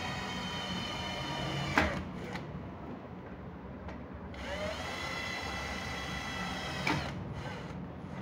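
Cordless drill boring screw holes through a sliding mosquito-net door's handle into its powder-coated frame: two runs of steady whine, the first stopping with a click about two seconds in, the second starting about halfway through and stopping with a click near the end.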